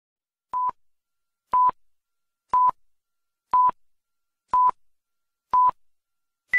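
Film-leader countdown beeps: six short, identical beeps one second apart, then a single higher-pitched beep at the end.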